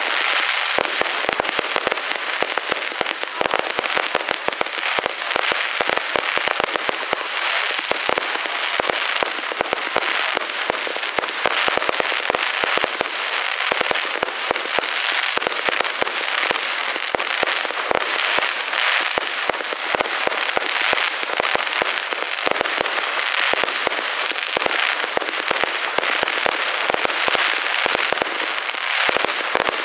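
Aerial fireworks bursting in a continuous barrage, a dense, unbroken crackling and popping of many small reports with no pause.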